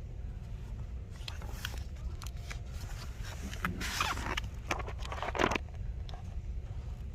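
Footsteps crunching through snow, a scattered series of short crunches, over a steady low rumble.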